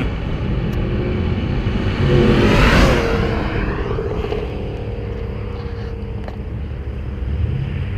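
A car drives past with its engine running, loudest about three seconds in, and its engine note drops as it moves away.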